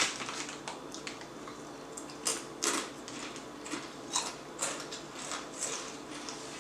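Irregular short crackles and clicks from snacks being handled and eaten, a few sharp ones standing out about two and a half seconds in and again around four seconds in.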